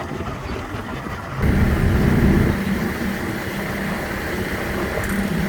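An engine running steadily with a low hum and rushing noise, jumping suddenly louder about a second and a half in.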